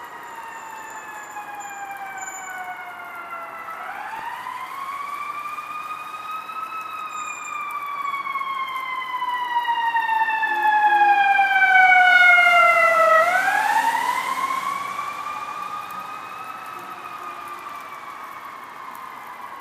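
Fire truck's Federal Signal eQ2B electronic siren sounding a slow wail: each cycle rises over about three seconds and sinks over about six. It grows louder as the truck approaches, is loudest about twelve seconds in, then fades as the truck passes.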